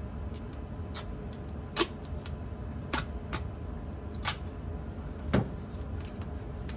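Furnace blower fan running steadily, with about six sharp clicks and knocks from handling on top of it, the loudest about two seconds in and again about five seconds in.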